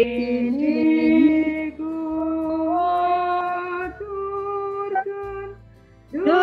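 A woman singing a slow hymn over a video call, holding long notes. She breaks off for about a second near the end and then starts the next phrase.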